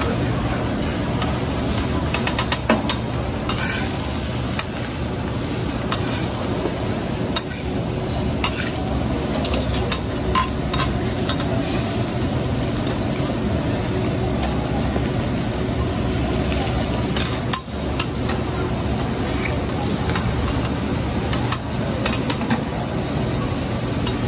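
Vegetables frying in butter on a teppanyaki steel griddle, sizzling steadily, with a metal spatula scraping and clicking against the griddle now and then. A steady low hum runs underneath.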